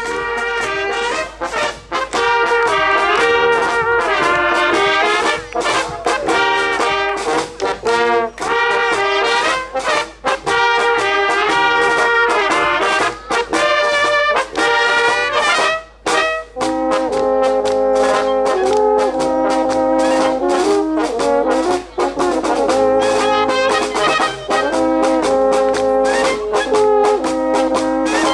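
Brass band music, with trumpets and trombones playing a melody that changes about halfway through to held chords.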